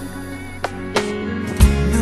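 Background music: soft held notes with a few sharp drum-like hits, then a deep bass and fuller beat coming in near the end.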